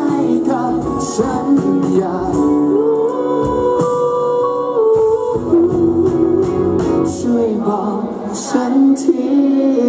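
A male singer singing live into a handheld microphone over instrumental accompaniment, amplified through a PA. He holds long notes about halfway through.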